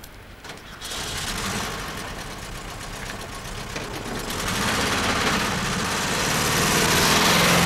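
Volkswagen Type 2 bus's air-cooled flat-four engine running with a rattly rumble. It comes in suddenly about a second in and grows louder toward the end.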